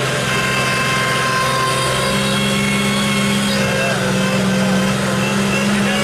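Off-road vehicle winching through a stuck spot: the winch hauls in a taut cable with a steady whine over the running engine, growing a little stronger about two seconds in.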